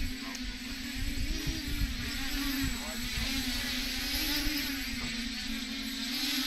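TBS Discovery quadcopter's motors and propellers buzzing as it hovers low, the pitch wavering up and down with the throttle, with gusty wind rumble on the microphone from the downdraft.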